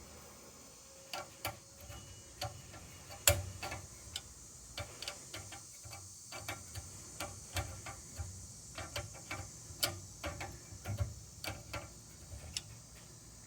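Irregular metal clicks and taps from hand tools working on a hydrant's square operating shaft gripped with locking pliers, with one sharper knock about three seconds in.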